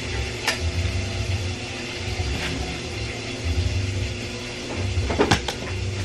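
Plastic table-fan parts being handled: a few light knocks and clicks, with a cluster of them about five seconds in, over a steady low rumble.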